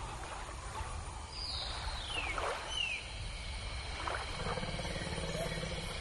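A hippopotamus surfacing and swimming in a river, with low grunting calls and moving water. Bird whistles falling in pitch sound twice, about a second and a half to three seconds in.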